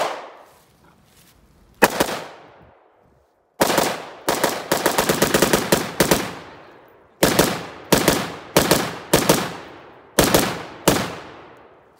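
Gunshots: a handgun shot and another single shot, then an AR-15-style rifle firing a fast string of shots for about two and a half seconds, followed by single shots coming in quick pairs, each shot trailing off in an echo.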